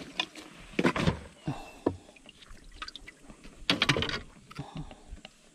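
Water splashing and sloshing in irregular bursts, with the biggest splashes about a second in and again around four seconds.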